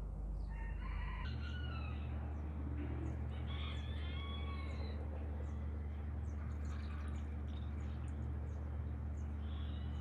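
A rooster crowing twice over a steady low rumble, with small birds chirping faintly.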